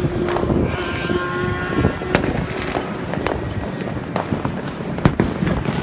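Fireworks going off in a dense run of bangs and crackling, with two sharper, louder bangs about two seconds in and about five seconds in. A steady held tone sounds beneath them through the first half.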